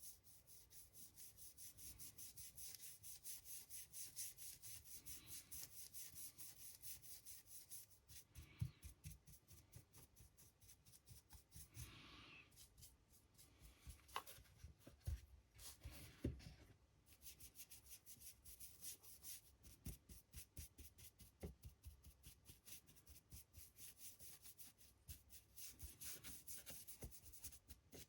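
Faint, quick scratchy strokes of a paintbrush rubbing back and forth, about four a second, with a few light knocks in the middle.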